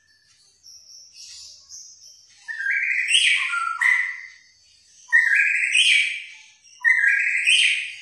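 A songbird singing: a few faint chirps, then three loud, rich song phrases about a second long each, the first starting about two and a half seconds in.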